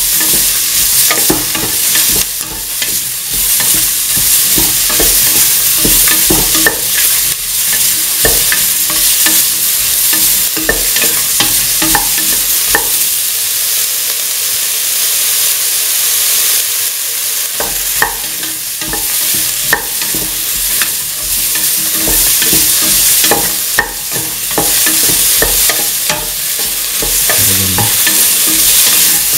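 Cauliflower, bell pepper and onion sizzling in hot oil in a metal pan while being stirred, the utensil clacking and scraping against the pan many times. The stirring eases off for a few seconds around the middle, leaving mostly the steady sizzle.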